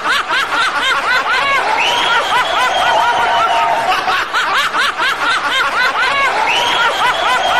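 High-pitched laughter: rapid giggles, several short rising-and-falling squeals a second, with a couple of longer held squeals.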